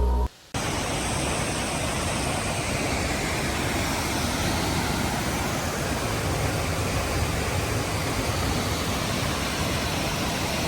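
Looking Glass Falls waterfall pouring into its pool: a steady, even rush of falling water that starts about half a second in.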